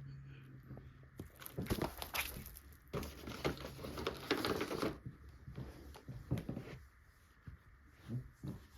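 Rustling and light knocks of items being handled and packed into a gift bag, busiest in the first half and sparser near the end.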